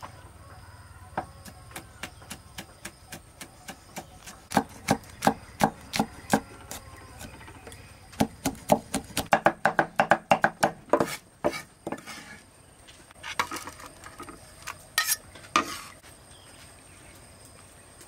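Cleaver chopping red chili peppers on a thick wooden chopping block: a few light taps, then a run of firm chops about three a second, then fast chopping of about five or six strokes a second, trailing off into a few last strikes.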